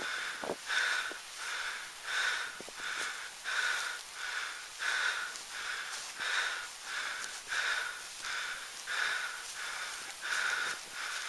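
A person breathing hard and evenly close to the microphone, in and out in a steady rhythm of about one breath every second and a half.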